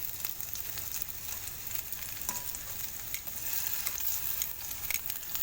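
Potato and carrot pieces sizzling steadily as they fry in oil in a pan, with a few sharp clicks of a spatula stirring them.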